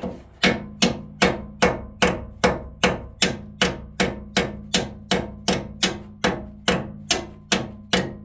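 A hammer striking metal in a steady rhythm, about two and a half blows a second, each blow leaving a ring. It is hammering at a stuck shear bolt in a snowblower's auger shaft to drive it out.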